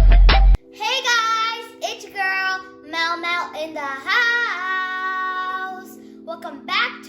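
A heavy hip-hop beat cuts off about half a second in; then a child sings a jingle in long held notes over sustained synth chords.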